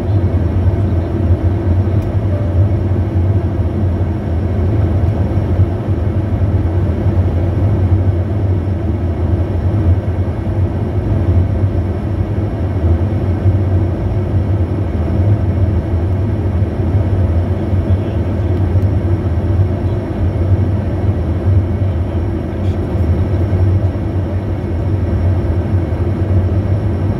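Steady cabin noise inside a Bombardier Challenger 350 business jet descending to land: a constant low roar from its rear-mounted turbofan engines and the air rushing past, with a faint high steady whine above it.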